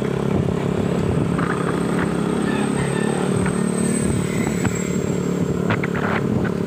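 Motorcycle engine running steadily under way, with a few short clicks near the end.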